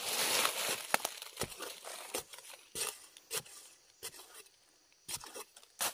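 Spade digging into dry, hard soil: a rough scrape and crunch in the first second, then scattered sharp crunches and clicks.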